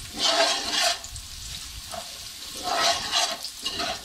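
Slotted metal spoon stirring and scraping browned onions, curry leaves, cloves and cumin sizzling in hot ghee in a metal pot, in two bursts of stirring, the second about two and a half seconds in.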